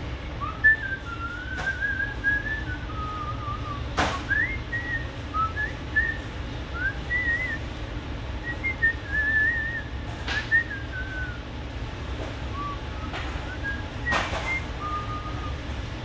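A person whistling a slow, wavering tune, with a few sharp taps in between over a steady low rumble.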